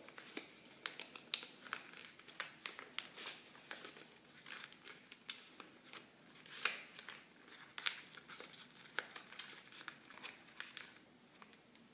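A sheet of paper being folded and creased by hand, pressed against a wooden floor: quiet, irregular paper crinkles and small ticks, with a louder crackle about a second in and another just past halfway.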